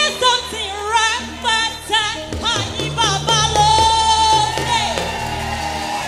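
Live African praise worship song: a woman sings lead into a microphone over instrumental backing with a steady bass line, her voice sliding between notes and holding one long high note about halfway through.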